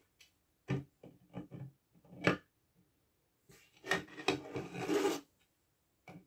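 3D-printed marble PLA bridge pieces knocking and sliding against each other as they are handled and lifted off the model: a few sharp clicks, the loudest about two seconds in, then plastic scraping on plastic for about a second and a half.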